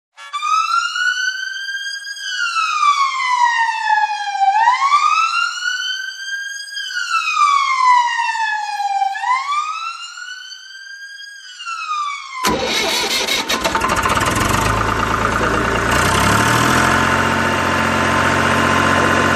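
A wailing siren rises and falls slowly, one full cycle about every four and a half seconds. About twelve seconds in it cuts off abruptly and a loud, steady engine running sound takes over.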